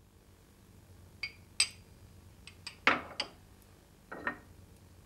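Light clinks of kitchen glassware and a small ceramic plate knocking together, about seven sharp taps with a brief ring, as melted beeswax salve is put on a cold plate to test whether it sets. The loudest clink comes near the middle.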